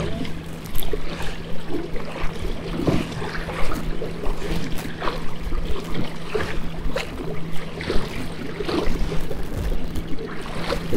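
Small waves slapping and splashing against a plastic kayak hull, with wind on the microphone, over a steady low hum from the kayak's electric trolling motor that starts at the very beginning and drops out briefly about seven seconds in.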